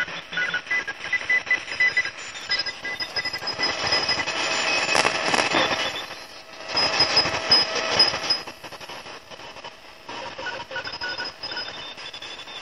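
Shortwave radio receiver tuned to 3517 kHz, giving out static that swells twice in the middle, with short on-off tones cutting in and out.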